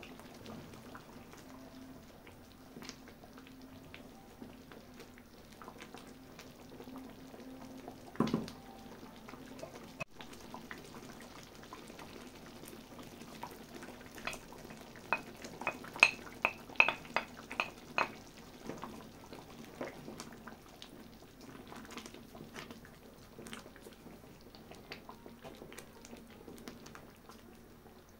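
Thick sauce simmering quietly in a metal pan while a wooden spatula stirs it, over a low steady hum, with a single knock about eight seconds in. About halfway through comes a quick run of sharp clinks, the loudest sounds here, as chopped boiled egg is tipped from a ceramic plate into the pan.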